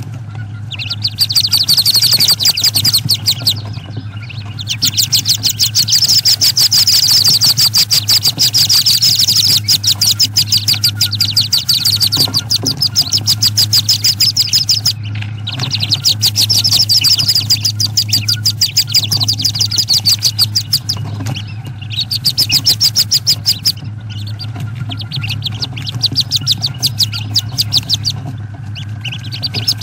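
Wood duck ducklings peeping rapidly and continuously inside the nest box, in long runs broken by a few brief pauses, over a steady low hum.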